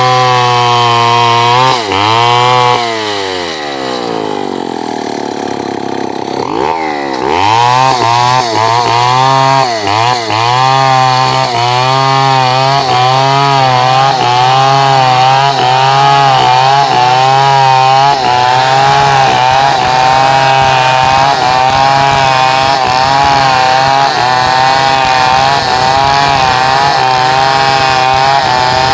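Two-stroke chainsaw engine running at high speed, dropping back about two seconds in, then revving up again near seven seconds. After that its pitch rises and falls over and over.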